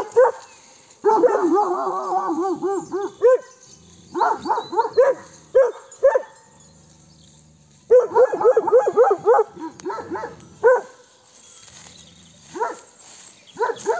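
Shepherd's guard dogs barking in quick runs of short barks with pauses between. It is uneasy alarm barking at something unseen.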